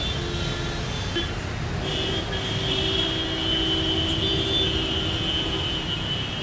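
Steady low rumble of outdoor traffic noise, with a sustained high-pitched tone that grows louder about two seconds in.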